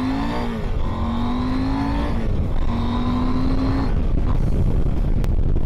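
KTM 890 Adventure's parallel-twin engine accelerating hard, the pitch rising in pulls broken by two upshifts. About four seconds in the throttle closes for an emergency stop, and wind rumble on the microphone is left.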